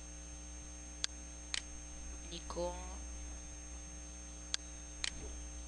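Steady electrical mains hum on the microphone, with computer mouse clicks in two quick pairs, about a second in and again near the end.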